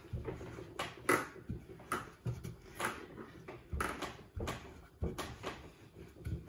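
A long wooden rolling pin rolling fresh egg pasta dough thin on a floured wooden board. It makes a short rubbing, knocking stroke about twice a second as it is pushed back and forth.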